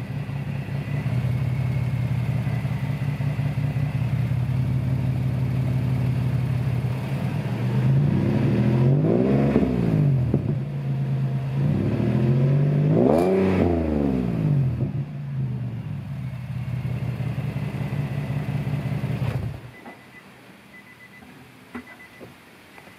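Nissan 370Z's 3.7-litre V6 idling steadily. It is revved briefly twice, about nine and a half and thirteen seconds in, then switched off and cuts out about twenty seconds in.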